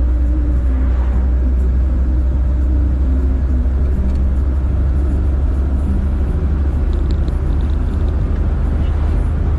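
Steady low rumble of a car driving along a road, engine and tyre noise at an even speed.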